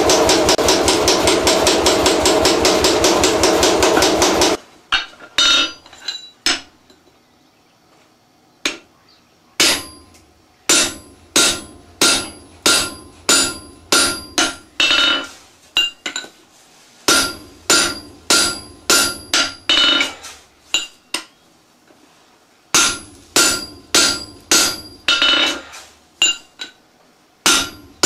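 A power hammer pounds hot steel at about nine or ten blows a second, then stops abruptly. Hand-hammer blows on the anvil follow, about one or two a second in runs with short pauses, each with a bright metallic ring.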